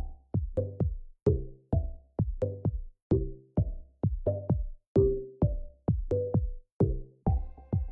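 Background music with a steady electronic drum beat, about two beats a second.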